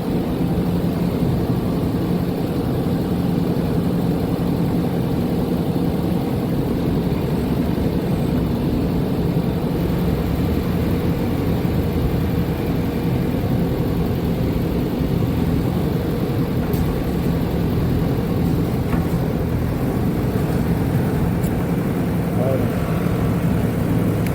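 Backhoe loader's diesel engine running at a steady speed, with no revving.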